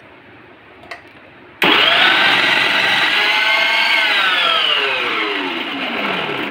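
Preethi Zodiac mixer grinder's 750 W motor spinning the food-processor jar's grating disc as cabbage is pushed down the feed tube. It starts abruptly about a second and a half in, runs with a steady whine, then falls in pitch as it winds down near the end.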